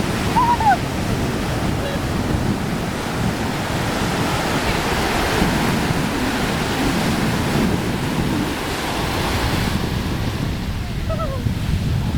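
Pacific Ocean surf breaking and washing up the sand, with wind buffeting the microphone. The wash grows fuller about four seconds in and eases near the end, with a couple of brief high calls heard faintly at the start and end.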